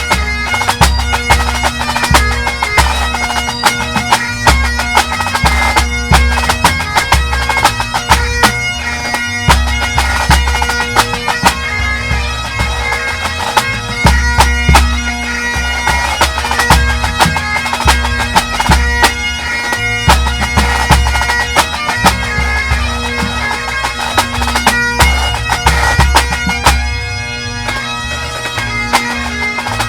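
Full pipe band playing a competition medley: Highland bagpipes sound a melody over their steady drones, with snare drums playing rapid rolls and strokes and a bass drum beating the pulse.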